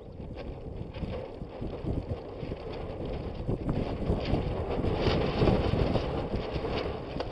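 Wind buffeting the microphone with water rushing along the hull of a Hobie Adventure Island sailing kayak under sail. It builds, loudest about five seconds in.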